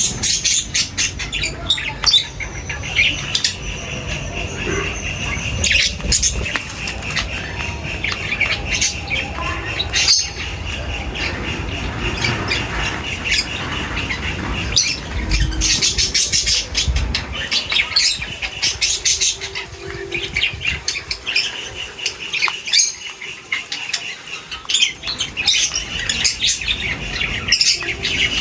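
A group of birds chirping and squawking, with frequent short wing flutters and sharp clicks.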